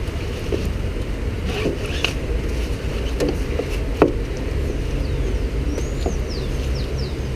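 Tie-down straps with cam buckles being pulled tight over a kayak on a car roof: a few light clicks and one sharper knock about four seconds in, over a steady low rumble, with a few high chirps near the end.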